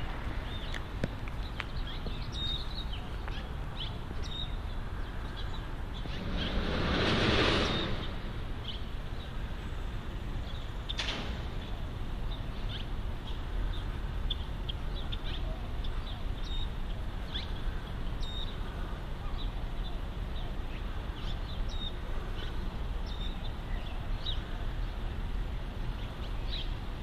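City street ambience with a steady traffic rumble. One vehicle passes about seven seconds in, swelling and fading. Small bird chirps come and go throughout, with a single sharp click near the middle.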